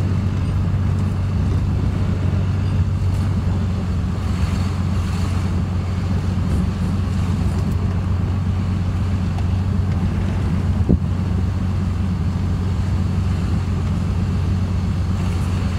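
2005 Dodge Ram's 5.9 Cummins inline-six turbodiesel running steadily under light load while the truck drives slowly on its MPG tune, heard from inside the cab as a low, even drone. A single light knock sounds about eleven seconds in.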